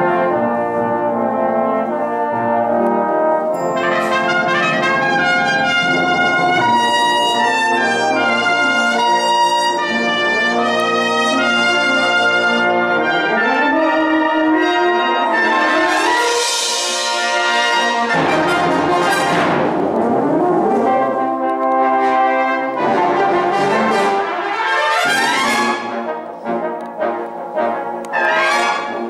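Brass band playing with a solo cornet out in front, the full band sounding together. It drops to a softer passage near the end.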